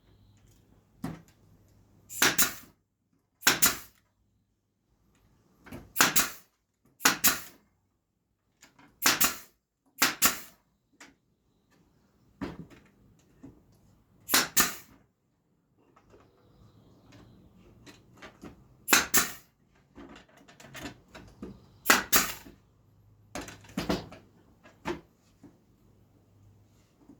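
Nail gun firing about a dozen single shots, one to three seconds apart, each a sharp pop, as fence-picket sun pieces are tacked down.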